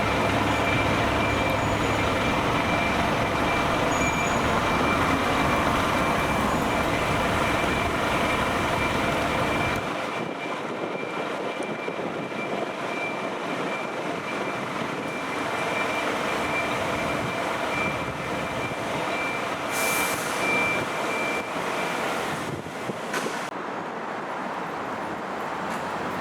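Heavy truck's diesel engine running with a reversing beeper sounding a steady series of high beeps. The engine rumble drops away about ten seconds in. The beeping carries on and stops a few seconds before the end.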